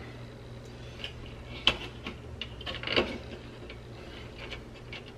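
Thermostat wires being pushed and bent flat by hand against a Honeywell heat pump thermostat's plastic base plate: scattered light clicks and taps of wire and plastic, with two sharper clicks a little under two seconds and about three seconds in.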